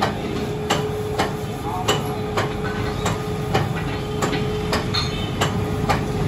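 Metal lathe slowly turning an engine crankshaft, running with a steady hum and a sharp metallic click about twice a second.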